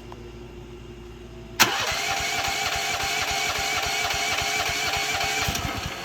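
A click, then the mini excavator's gasoline engine fires about a second and a half in on gas poured down its carburettor, with the choke on at quarter throttle. It runs with a rapid pulsing for about four seconds and fades near the end.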